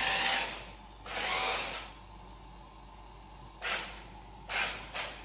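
Small electric drive motors of a 4WD remote-control stunt car whirring in short stop-start bursts, about five of them, each under a second long.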